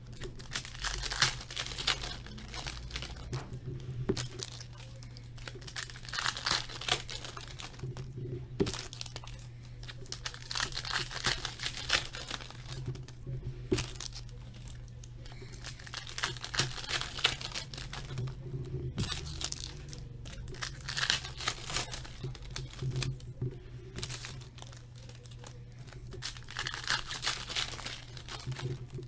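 Foil wrappers of Upper Deck hockey card packs being torn open and crinkled one after another, a crinkling rush every few seconds over a steady low hum.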